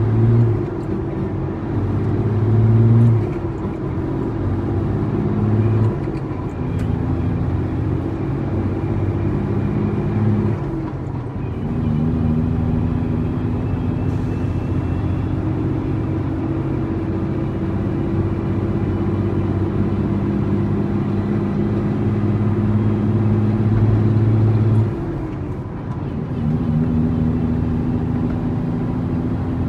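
International 9300 truck's diesel engine running under way. Its note drops in pitch several times, rising slowly through a long stretch in the middle.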